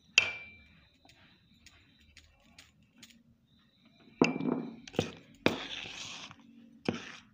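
A metal spoon clinks against a metal mixing bowl with a short ringing note, once near the start and again about four seconds in. Then come several sharper knocks and a rustling scrape as flour is tipped in and worked into the creamed mawa and sugar mixture.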